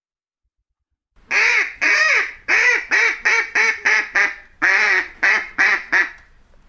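Duck quacking: about a dozen loud, nasal quacks in quick runs, starting about a second in.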